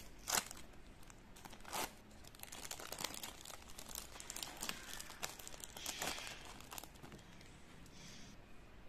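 Thin clear plastic film of an individually wrapped cheddar cheese slice crinkling and crackling as it is peeled open, in a run of sharp crackles that dies down near the end.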